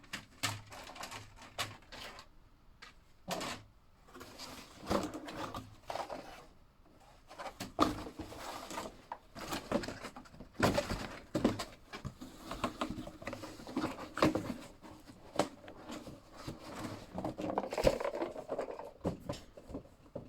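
Plastic parts of a slot car set being handled and set down: irregular clicks, light knocks and rustling, without a steady rhythm.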